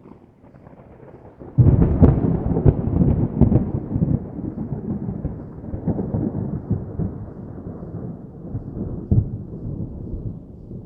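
Distant thunder: a faint low rumble breaks about a second and a half in into a loud crackling peal that slowly rolls away, with one more sharp crack near the end.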